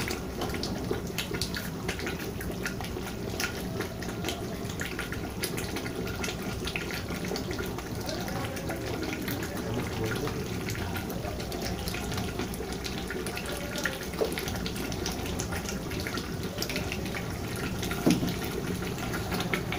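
Curry gravy simmering in a large aluminium pot over a gas burner: a steady hiss, with scattered light clicks and taps of a spoon and ladle.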